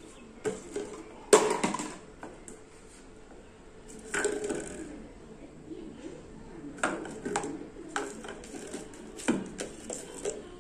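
Plastic bottles knocked about and tipped on a hard countertop by a cat's paws: irregular clattering knocks, the loudest about a second and a half in, with others around four, seven and nine seconds in.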